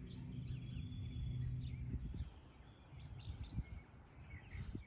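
Birds chirping on and off, short high chirps and a few whistled notes, over a low background rumble that drops away about two seconds in.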